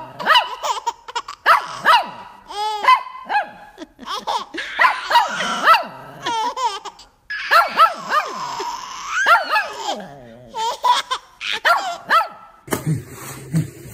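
A small white dog barking in short yaps at a baby, who answers with giggles and squeals of laughter; the barks and laughs come in quick bunches, with a longer laugh about halfway through.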